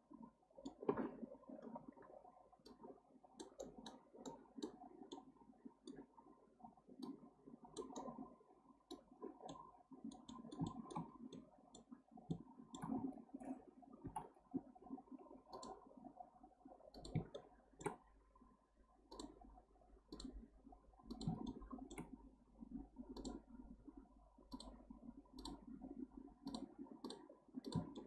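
Faint, irregular clicking of a computer mouse and keyboard as they are worked, with middle-button presses and single key taps.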